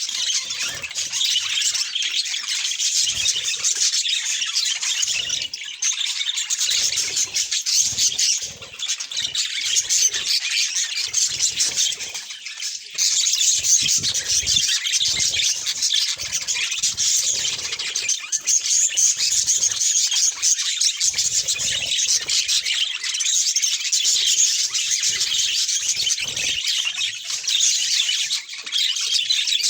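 Budgerigars chattering and warbling: a dense, unbroken stream of quick high chirps and squawks, dipping briefly twice before picking up again.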